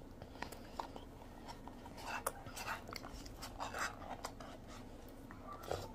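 Someone eating ice cream: soft chewing with scattered small clicks and scrapes, and one sharper click about two seconds in.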